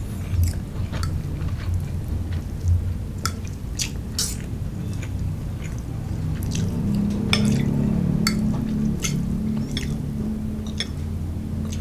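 A person chewing fried rice vermicelli close to the microphone: wet mouth clicks and smacks come irregularly throughout, over a steady low hum.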